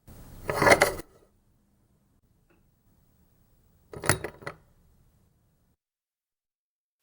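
Old metal door peephole's cover sliding with a scrape that ends in sharp metal clicks, then a second, shorter set of metallic clicks about four seconds in.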